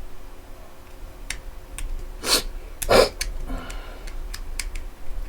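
Scattered small clicks from plastic parts being handled as a speaker's circuit board is worked loose, with two short breathy noises about two and three seconds in.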